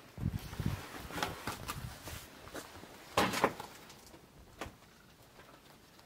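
Footsteps on old wooden floorboards and the knocking of a wooden door being passed through, with low thuds in the first second, scattered clicks and one louder knock about three seconds in.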